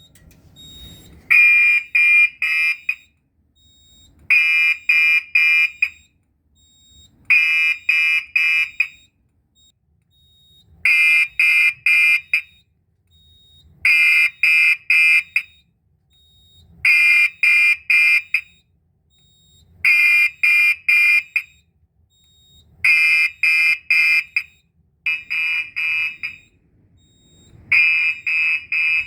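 Gentex fire alarm horn strobe sounding in march time after the manual pull station was pulled: the panel's 20-beats-a-minute pattern switches it on about every three seconds, and each time the horn gives a group of about four quick blasts. The horn has a slightly scratchy tone.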